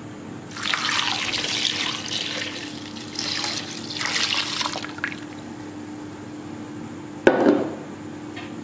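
Thin coconut milk poured into a clay pot over cut raw fish pieces, in two splashing pours of about two seconds each. A single sharp knock comes about seven seconds in.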